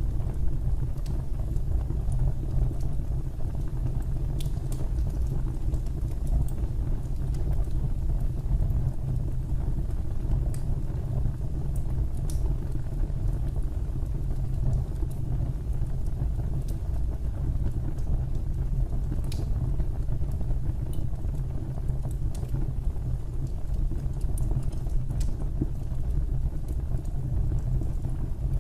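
Fireplace fire burning: a steady low rumble with sparse, faint crackles and pops scattered throughout.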